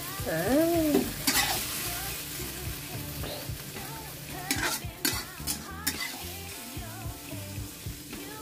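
Stir-fried baby mustard greens and meat sizzling in a wok while a metal spatula stirs and scrapes the pan, with a few sharp scrapes about a second in and again around the middle.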